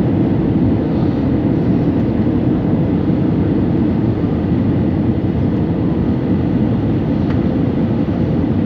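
Steady engine and airflow noise inside an airliner cabin in flight, a loud, even drone.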